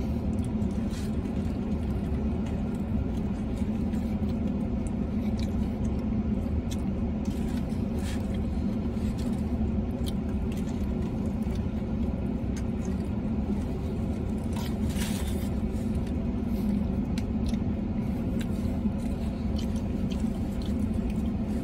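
Steady low hum in a parked truck's cab, with a man chewing mouthfuls of burrito and soft clicks and rustles of the wrapper, one louder rustle about fifteen seconds in.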